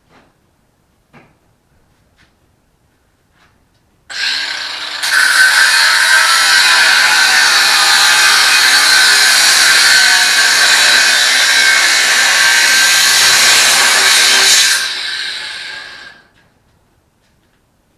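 Ryobi 18V cordless angle grinder started about four seconds in, its cut-off wheel cutting through steel for about ten seconds with a loud steady grinding noise, then released and winding down. A few faint clicks come before it starts.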